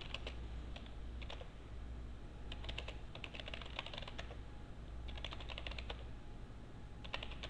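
Computer keyboard typing in several short bursts of keystrokes with pauses between them, over a low steady hum.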